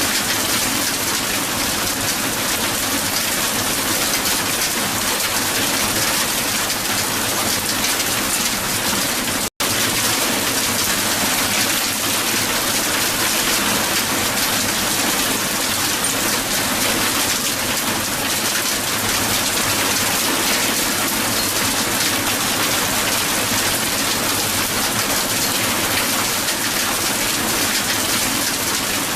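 Hail falling steadily on the ground, a dense, even patter. It cuts out for an instant about nine and a half seconds in, then carries on unchanged.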